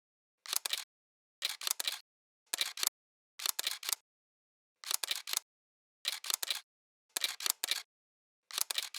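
Camera shutter firing over and over, about once a second: each release is a quick cluster of two or three sharp mechanical clicks, with dead silence between.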